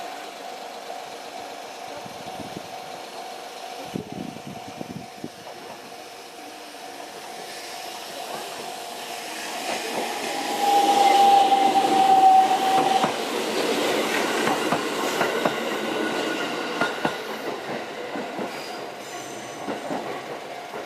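JR 313 series electric train passing over a level crossing, loudest about ten seconds in, with a long high tone for about two seconds as it reaches the crossing. The wheels then clatter over the rail joints for several seconds, while the crossing alarm keeps sounding a steady tone throughout.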